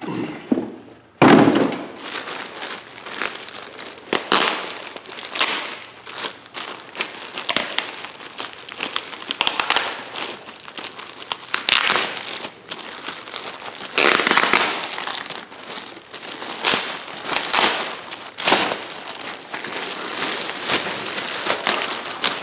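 Clear plastic wrapping bag crinkling and rustling in irregular crackles as hands pull and handle it, with a sharp loud crinkle about a second in.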